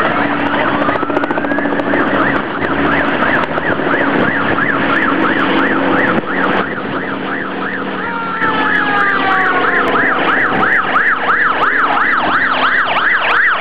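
A siren yelping, its pitch sweeping quickly up and down about three times a second, from the escort vehicles leading the runners in. A second, slowly falling tone joins it for a few seconds past the middle.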